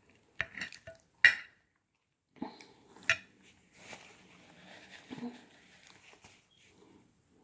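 Cutlery clinking against a dish during dessert eating: four sharp clinks in the first three seconds, the loudest about a second in, followed by softer, quieter handling noises.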